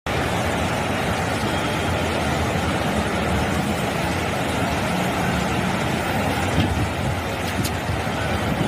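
Floodwater rushing and churning through a flooded street: a steady, unbroken rushing noise.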